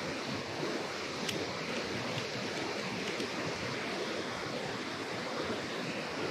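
Steady rush of water pouring over a low dam spillway, with a light click about a second in.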